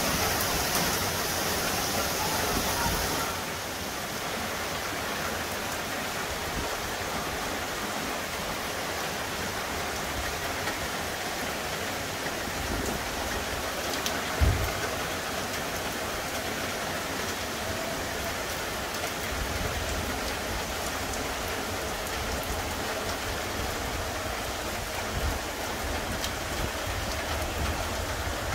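Heavy rain falling steadily on wet asphalt and trees, a dense even hiss that is louder for the first three seconds or so. One brief low thump about halfway through.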